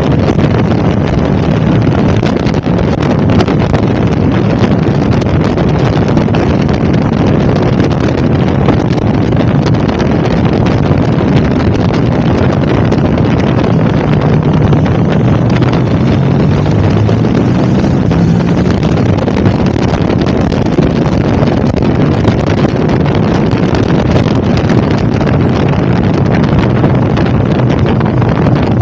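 Wind buffeting the microphone over the steady drone of a KTM 1290 Super Adventure's V-twin engine at cruising speed, its engine note rising and falling a little in the middle.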